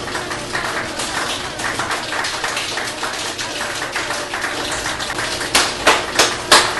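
Applause: many hands clapping in a dense, even patter, with a few louder single claps near the end.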